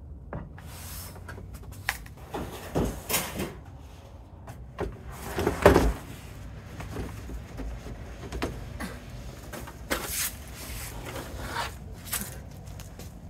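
Knocks, thumps and rustling of things being handled and lifted out of an SUV's cargo area, among them a folding table. The loudest thump comes about halfway through.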